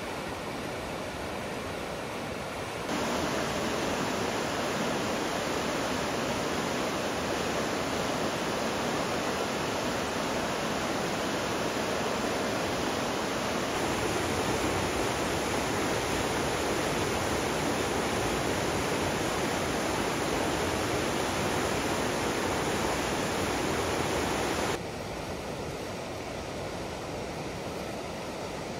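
River water rushing through a rocky gorge, a steady even roar of rapids. It jumps louder about three seconds in and drops back to a softer rush near the end.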